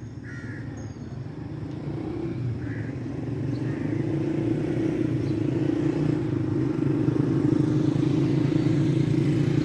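A motor vehicle's engine running with a steady low hum, growing louder over the first few seconds and then holding steady.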